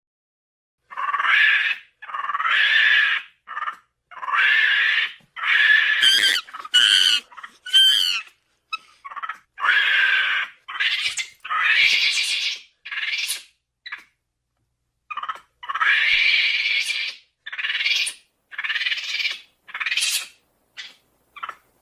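Hypsilophodon creature sound effect made partly from monkey calls: a string of about twenty short, shrill calls and squeals with brief silences between them. A few squeals in the middle rise in pitch.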